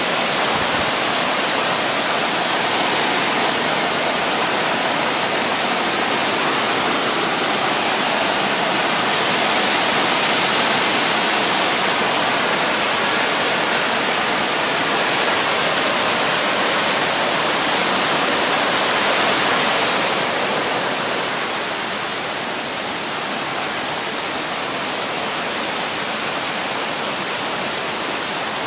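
Mountain valley stream water rushing steadily, a loud even hiss that eases slightly about three-quarters of the way through.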